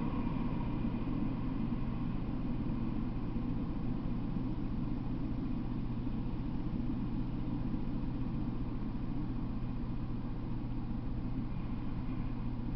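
Steady low rumble and hiss with a constant low hum underneath, with no distinct events.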